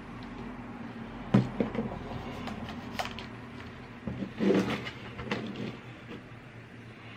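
Knocks and clicks of a Divoom Times Gate display clock being handled on its box: a sharp knock about a second and a half in, a click near three seconds, and a cluster of knocks and rubbing a little past four seconds. A steady low hum runs underneath.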